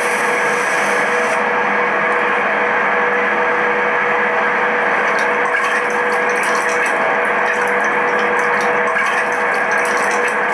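Steady, even noise with a faint held hum running under it: the ambient sound bed of a music video's intro, before the song begins.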